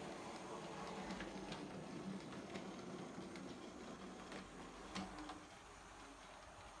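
Small model railway locomotive running along the track: a faint motor hum with scattered light clicks from the wheels on the rails. The hum drops away about five and a half seconds in, as the train draws off.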